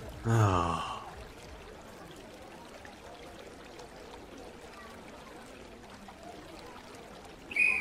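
A faint steady hiss, broken near the end by one short, high whistle blast, the signal for the waiting train to start.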